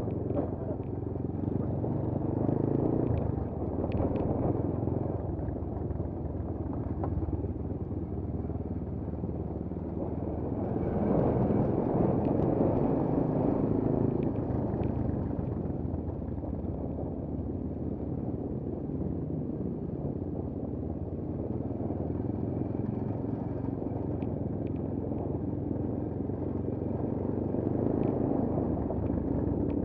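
Monkey bike engines running at low speed along a path, louder for a few seconds about eleven seconds in.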